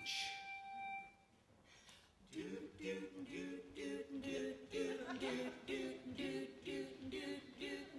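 A single bell-like tone rings out and fades within about a second. Then, about two seconds in, a four-voice a cappella group starts a rhythmic wordless vamp in harmony, about three short sung notes a second.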